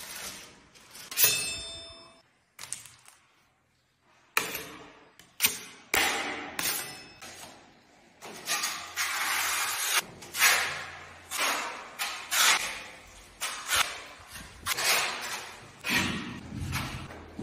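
Steel plastering knives scraping joint compound across a wall in repeated strokes, about one a second, with a short metal ping about a second in.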